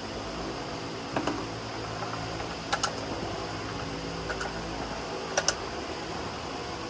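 Steady fan-like hum with four pairs of light, sharp clicks spread across it, like keys or a mouse being clicked.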